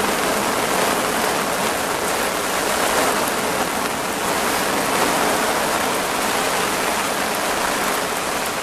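Heavy rain pouring onto a lake, a steady, dense hiss of rain on the water.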